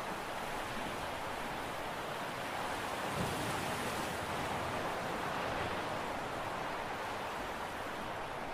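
Steady rushing noise of sea water and wind, growing slightly louder about three seconds in, with no distinct engine note or horn.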